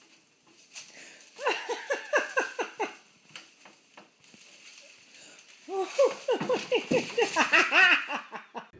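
A person laughing in two fits of quick, repeated "ha-ha" syllables. The first runs about 1.5 s in for over a second. The second, louder fit starts about 6 s in, climbs higher in pitch, and stops just before the end.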